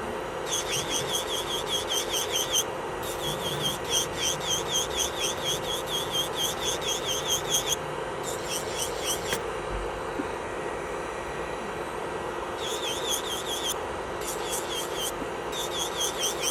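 Electric nail drill (e-file) running at a steady high speed, with runs of quick high chirps, about five or six a second, that start and stop several times.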